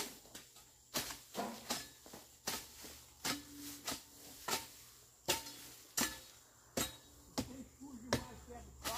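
A hoe chopping into soil and weeds while weeding, with repeated sharp strikes at an uneven pace of about one to two a second.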